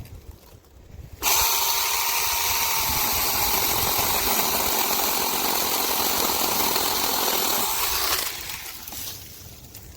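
Cordless brushless handheld mini chainsaw running for about seven seconds, starting abruptly; its whine dips slightly in pitch about three seconds in and rises again just before it stops.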